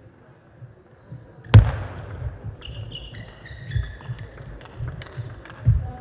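Table tennis rally: the celluloid-type ball clicking off bats and table, with shoes squeaking on the sports floor and low footwork thuds. A loud, sharp thud about a second and a half in is the loudest sound, with another strong thud near the end.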